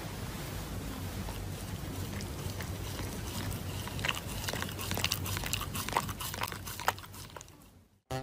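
A dog chewing and tearing at a paper mask on its face: a run of sharp crunching clicks starting about three seconds in, over a steady low hiss, then fading out near the end.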